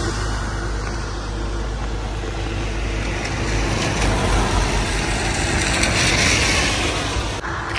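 Road traffic on a wet, flooded road: a truck's engine hum fading away over the first few seconds, then a car approaching with tyre hiss through standing water that swells about five to seven seconds in and breaks off abruptly near the end.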